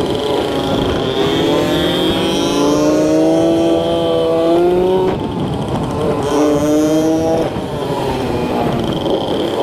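Motor scooter engine running under way, its note climbing, dropping back sharply about five seconds in and again near seven and a half seconds, then climbing again. Wind buffets the microphone underneath.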